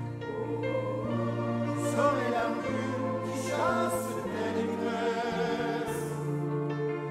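Large mixed choir singing, holding sustained chords over a steady low bass note. A higher voice rises and falls above the chords twice, and the singers' sharp 's' sounds cut through a few times.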